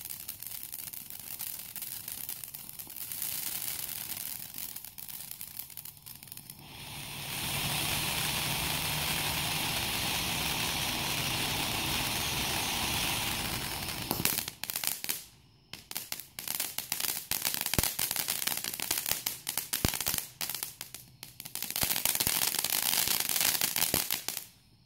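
Dominator Dante's Peak firework fountain spraying sparks: a hiss with scattered crackles at first, a steady louder rushing hiss through the middle, then dense rapid crackling and popping in the last ten seconds that cuts off suddenly just before the end.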